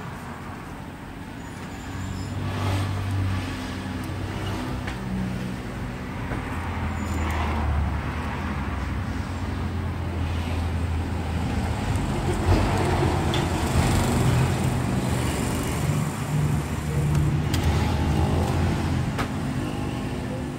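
Low rumble of a motor vehicle engine running, its pitch shifting now and then, with a few faint clicks over it.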